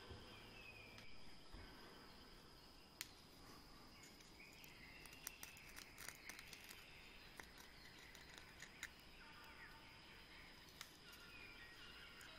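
Near silence: faint scattered clicks, about a dozen at uneven intervals, and a few faint chirps over a steady high hiss.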